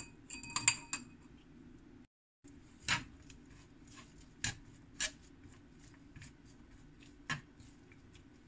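Chopsticks tossing shredded cucumber and soaked jellyfish in a nonstick frying pan, with a few sharp taps of the chopsticks against the pan, over a faint steady hum. Near the start there is a brief clinking of dishware.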